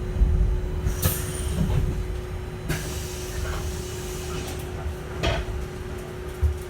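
Inside a Switch Metrodecker EV electric double-decker bus: a steady whine at one pitch over a low rumble that eases off, with a few sharp clunks and rattles.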